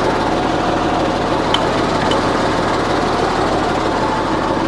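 Truck engine idling steadily, an even, unchanging drone.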